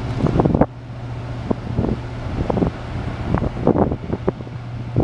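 Steady low hum of the Freedom-class littoral combat ship USS Billings' machinery as the ship passes close by, with irregular gusts of wind buffeting the microphone. The hum is a bit louder for the first half second.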